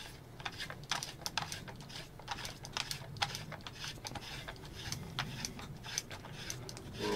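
Irregular light clicks and taps of hard plastic and metal knocking together as a 3D-printed shroud and a silencer are slid onto an air pistol and handled.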